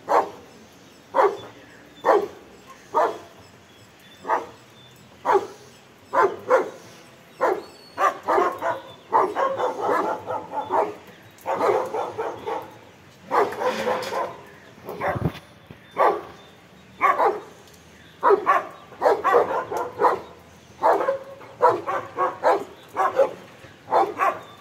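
Dogs barking at a prowling leopard. At first they give single barks about once a second, then quicker, overlapping runs of barking.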